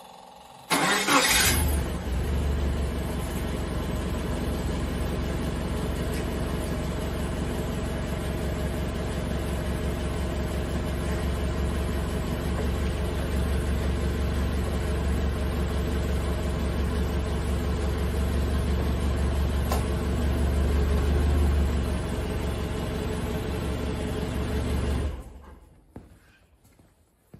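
Nissan forklift engine started with a brief burst of cranking about a second in, then running steadily at idle for about 24 seconds, a little louder just before it is switched off and stops suddenly about 25 seconds in.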